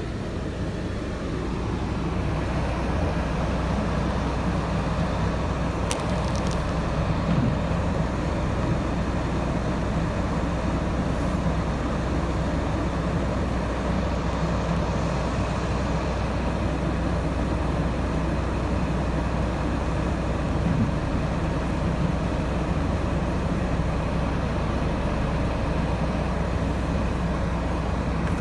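Steady motor-vehicle engine and road noise with a constant low hum, a little louder after the first couple of seconds, and one brief click about six seconds in.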